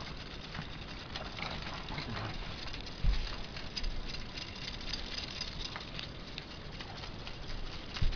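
Motorised K'nex buggy with a ratchet-drive CVT running, giving a steady, dense plastic clatter and clicking. Two louder knocks come about three seconds in and near the end.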